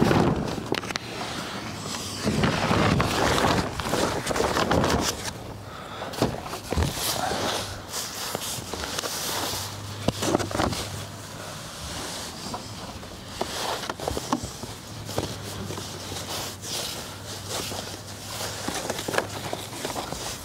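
Irregular footsteps with rustling and crackling, and scattered sharp clicks. A faint low hum comes and goes in the second half.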